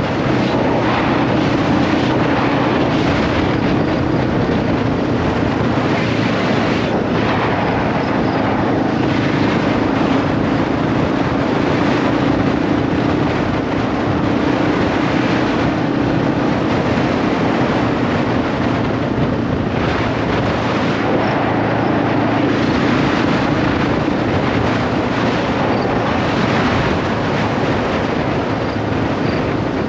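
A 2021 Yamaha XT250's single-cylinder engine running at a steady cruise, under heavy wind rushing over the camera's built-in microphone. The engine's pitch shifts slightly a few times.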